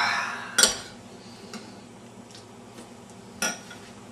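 A spoon clinking and scraping against a bowl of cereal, with a sharp clink about half a second in, a few faint ticks, and another clink about three and a half seconds in.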